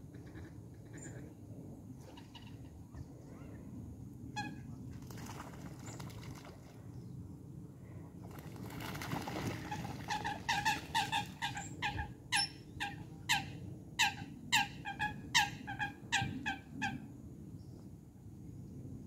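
Eurasian coots calling: a fast run of short, sharp calls, about two or three a second, starting about ten seconds in and going on for some seven seconds. It is preceded by a single call about four seconds in and a couple of seconds of rushing noise.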